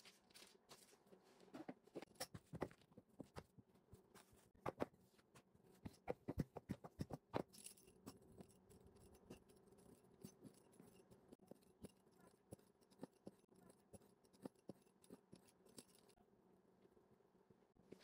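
A fluted pastry wheel cutting strips in rolled dough on a silicone baking mat: quiet, irregular clicks and taps, busiest in the first half, over a faint steady hum.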